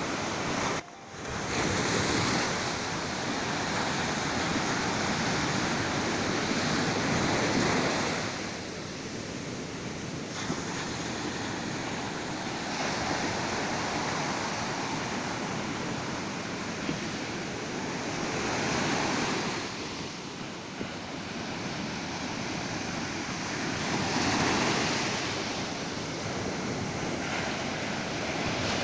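Ocean surf: waves breaking and washing up the beach in slow swells, loudest a few seconds in, again about two-thirds through and near the end. The sound drops out abruptly for a moment about a second in.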